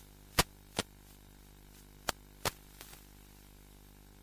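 Sharp clicks in two pairs, each click about 0.4 s after the first, over a faint steady electrical hum, heard in the audio carried by an analog FPV video link. There is no motor or wind sound.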